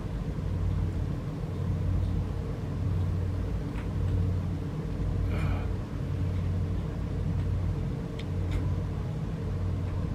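Boosted night-time recording of an empty room: a steady low rumble and hiss from the raised audio, with a few faint knocks and a short scraping sound about five and a half seconds in, captioned as movement heard from inside.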